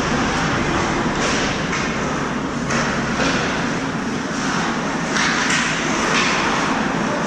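Steady rumbling noise of an indoor ice rink during hockey play, with irregular short hissing scrapes of skate blades on the ice.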